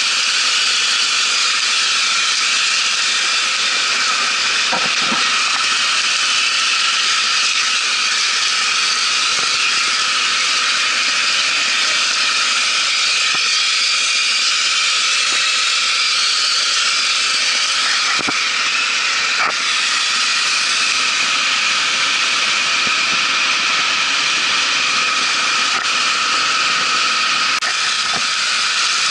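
Shotcrete nozzle spraying concrete with compressed air: a loud, steady hiss.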